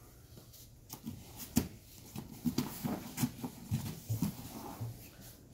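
Grappling on foam mats: bodies and gi fabric scuffing and thumping as a knee tap takedown is driven through. There is a sharp impact about a second and a half in, then a run of smaller thuds and scuffs.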